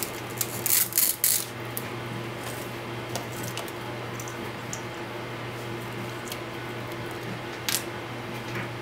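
A few small clicks and rubbing sounds of hands handling a quadcopter and its parts, a cluster about a second in and one sharper click near the end, over a steady low hum.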